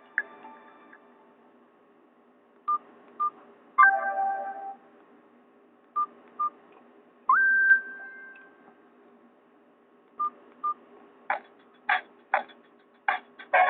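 Nokia 216 phone's speaker: a ringtone cuts off at the start, then short electronic beeps come in pairs, with a brief chord and a tone that slides up and holds between them. About two-thirds in, the next Nokia N97 Mini ringtone starts as a quick rhythm of sharp percussive strikes.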